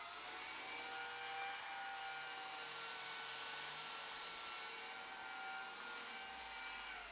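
Faint steady hiss with a thin, high, whining drone of several steady tones: the recording device's own background noise, with no distinct event.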